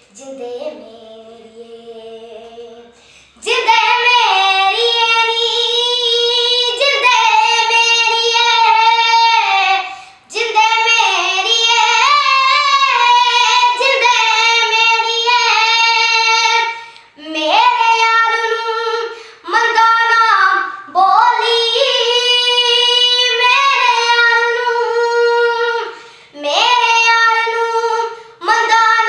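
A young girl singing a Punjabi song unaccompanied, in long held, ornamented phrases with short breaks between them. The first few seconds are softer and lower before she comes in loud and high.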